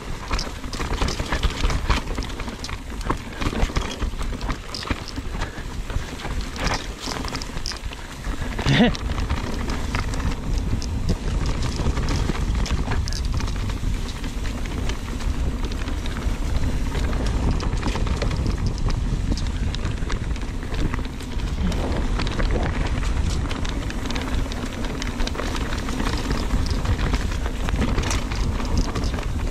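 Mountain bike ridden over a rough, rocky trail: tyres crunching and the bike rattling with constant clicks and clatter over a steady low rumble. A brief squeal is heard about nine seconds in.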